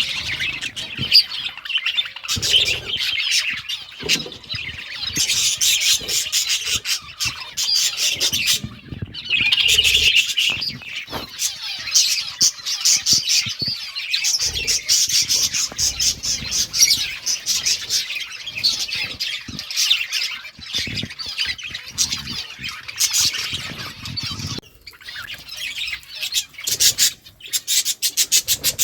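Several budgerigars chirping and chattering nonstop in a dense warble, with a brief break about nine seconds in and a quieter spell near the end.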